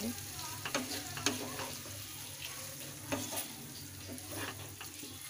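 Chopped tomatoes frying in hot oil in a non-stick pan, sizzling steadily while a spatula stirs them into the chana dal mixture, with several short scraping strokes against the pan.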